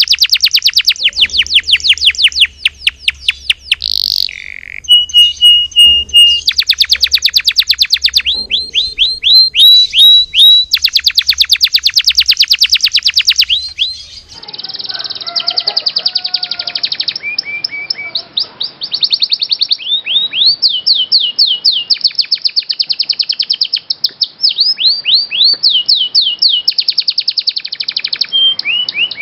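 Domestic canary singing a long song of fast trills and rolling phrases, repeated almost without pause.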